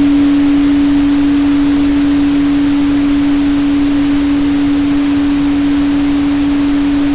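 A steady 285 Hz sine tone held under an even pink-noise hiss.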